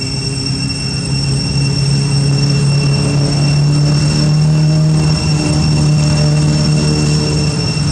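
A steady low mechanical hum, like a motor or engine running, with constant high-pitched whine tones above it; it grows somewhat louder over the first couple of seconds.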